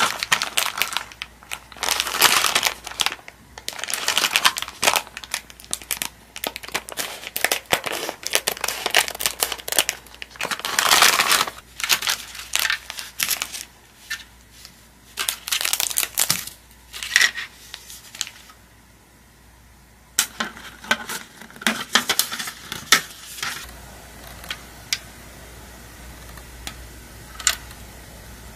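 Crinkling and rustling of a candy-kit's paper box and foil powder sachets being opened and handled, dense for most of the first two-thirds, then sparser clicks and rustles, including the light plastic tray being set down.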